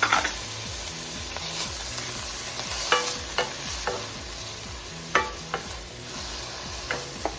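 Shallot, garlic and parsley sizzling in olive oil and butter in a frying pan, with a steady hiss and a utensil stirring and knocking against the pan now and then.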